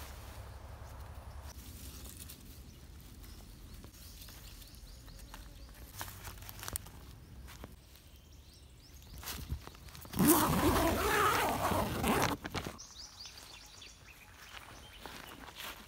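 A nylon dome tent being handled: scattered light rustles and clicks, and a loud burst of rustling about ten seconds in that lasts a couple of seconds.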